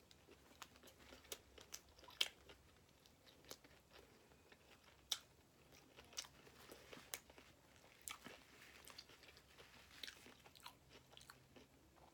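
Close-miked chewing of a Subway BMT sandwich: quiet, irregular mouth clicks and smacks, with a few sharper ones about two and five seconds in.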